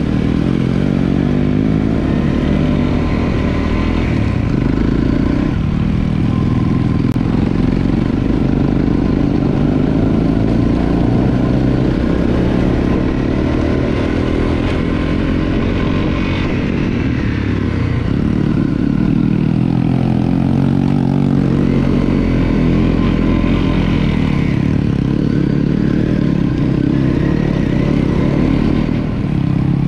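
Honda CRF250L's single-cylinder four-stroke engine running under way, its pitch rising and falling with the throttle.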